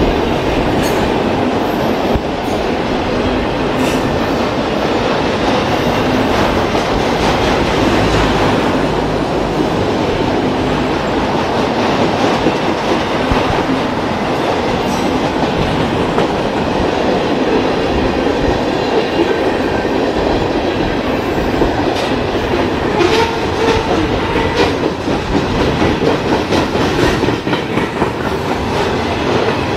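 Freight train cars rolling past close by: a steady rumble of steel wheels on rail with the clickety-clack of wheels over rail joints, the clicks sharper and more frequent in the last third.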